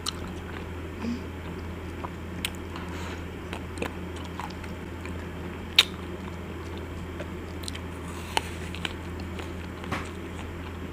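Chewing a chocolate-shelled ice cream bar coated in almond pieces, with a few short sharp crunches, the sharpest about six seconds in, over a steady low hum.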